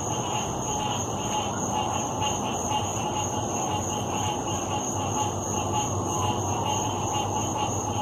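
Night chorus of many frogs calling at once, a dense, continuous din with no pauses, over a steady high-pitched tone and a low steady rumble underneath.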